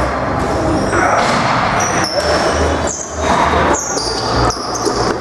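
Box lacrosse play echoing in an indoor arena: shoes squeaking briefly on the floor several times amid knocks from the ball and sticks.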